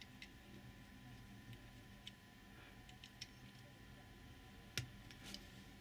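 Near silence, broken by faint scattered clicks of small plastic model-kit parts being handled and pressed together, with one sharper click near the end.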